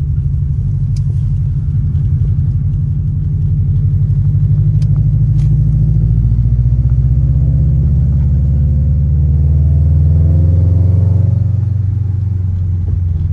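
Turbocharged car engine pulling while driving, its pitch climbing gradually for several seconds and then dropping as it eases off about eleven seconds in.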